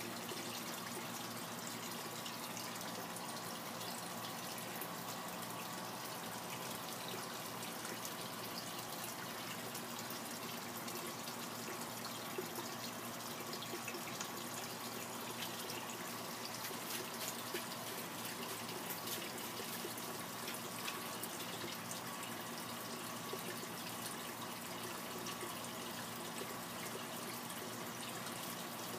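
Water trickling and splashing steadily into a garden fish pond.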